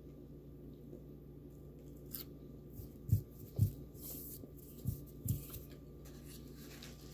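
Close-miked chewing of a mouthful of McDonald's Big Mac: four soft low thuds about three to five and a half seconds in, over a faint steady hum.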